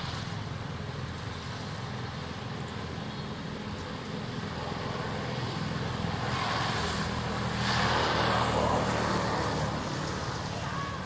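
Road traffic: a steady low engine hum, with a vehicle passing that swells louder from about six seconds in, peaks around eight seconds and fades by ten.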